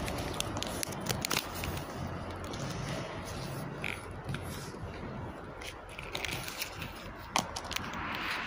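Scattered sharp clicks, scrapes and crackles of a hand-held phone's microphone being handled and rubbed, over a steady low background rumble.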